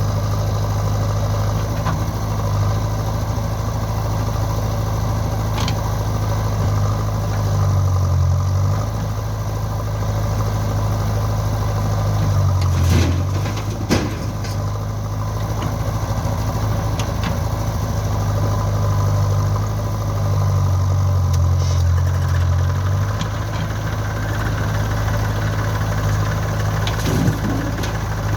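Heavy diesel engine of a JCB backhoe loader or tractor running steadily. Its note shifts briefly a few times: once about a third of the way in, once around the middle and once for a couple of seconds later on. A few sharp knocks sound around the middle and near the end.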